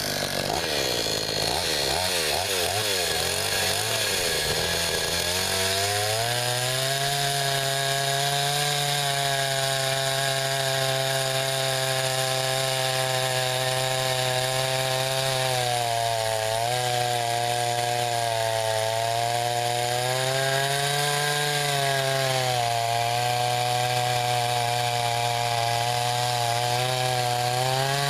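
Gas chainsaw running and cutting into a pecan log. The engine pitch warbles unevenly for the first few seconds, then holds steady, sagging briefly twice as it works through the wood.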